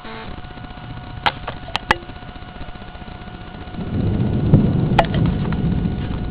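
A few sharp clicks in the first two seconds, then thunder rumbling low and heavy from about four seconds in, with another click in the middle of it.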